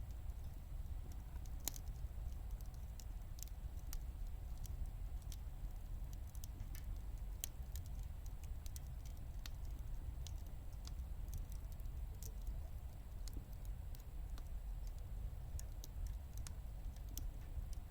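Firewood burning in a wood gas stove, crackling with irregular sharp pops over a low steady rumble.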